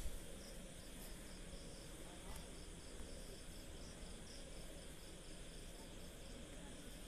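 Faint insect chirping, an even rhythm of short high chirps about three a second, over steady low background hiss, with a single click at the very start.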